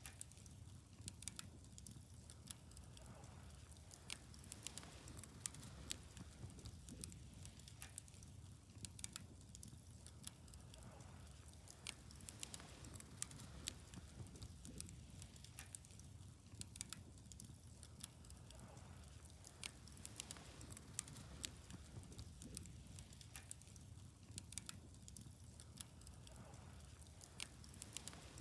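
Wood fire crackling: frequent, irregular sharp snaps and pops over a faint, steady low rumble.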